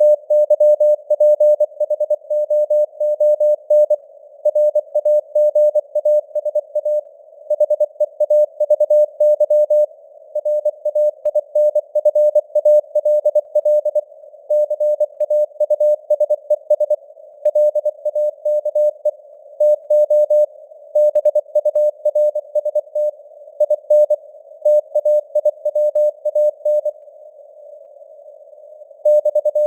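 Morse code (CW) sent at 24 words per minute as a mid-pitched beep keyed in rapid dots and dashes, over a narrow band of hiss that simulates radio noise. The keying stops for about two seconds near the end, then resumes.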